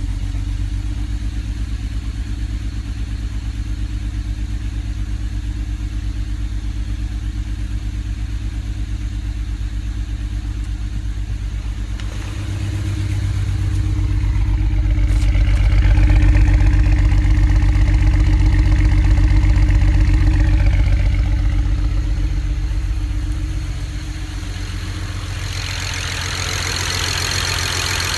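BMW N54 twin-turbo inline-six idling while misfiring on cylinder 6 from a bad fuel injector, so it runs on five cylinders. About twelve seconds in the engine speed rises slowly, holds, then falls back to idle. A hiss joins near the end.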